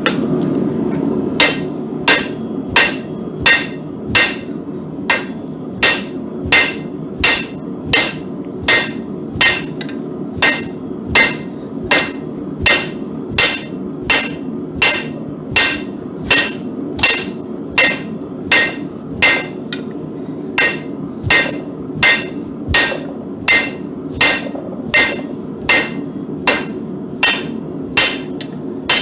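Hammer blows on a thick bar of mild steel on an anvil, in a steady rhythm of about three strikes every two seconds, each with a bright ring. The strikes are drawing the bar down by hand from 1.25 inches to just under an inch. A steady low hum runs underneath.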